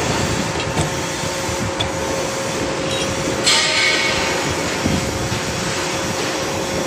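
Hydraulic power unit of a tube-cutting machine running steadily: a constant motor-and-pump drone with a steady hum tone. About three and a half seconds in there is a brief louder burst of noise.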